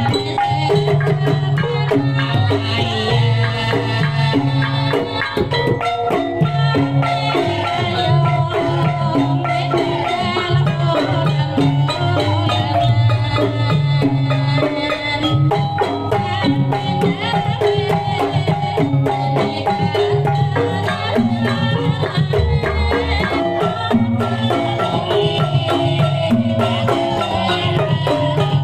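Kuda lumping accompaniment music at full volume over a sound system: hand drums beating a steady rhythm under struck gamelan metallophones.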